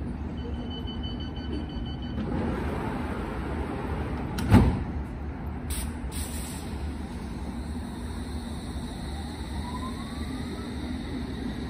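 London Underground S7 Stock train at a platform: the door-closing alarm beeps for about two seconds, then the sliding doors shut with one loud thud about four and a half seconds in. Near the end the traction motors start a rising whine as the train pulls away.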